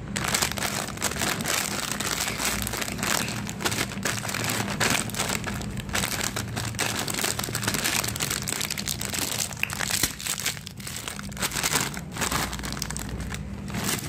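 Plastic cough-drop bag crinkling continuously as hands squeeze it and open it. Near the end the individually wrapped drops are poured out.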